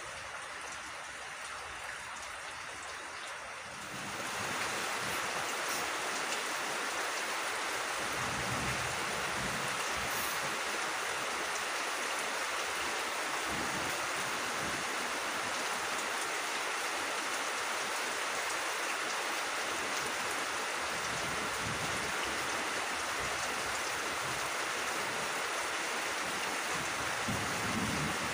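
Steady rain falling on fields and vegetation, a continuous hiss that grows louder about four seconds in.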